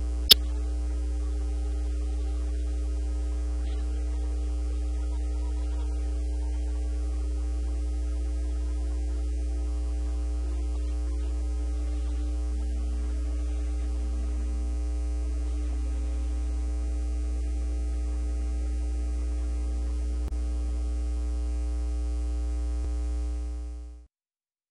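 Steady electrical mains hum, with a single sharp click about a third of a second in; the hum fades out near the end.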